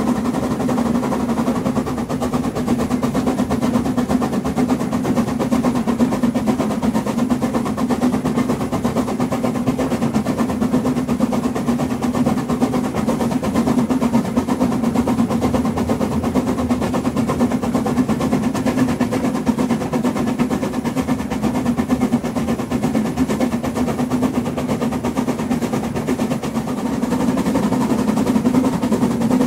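Harz narrow-gauge 2-10-2 tank steam locomotive 99 7245-6 running at speed, heard from right behind it: a fast, steady stream of exhaust beats mixed with running-gear clatter and wheel noise on the rails.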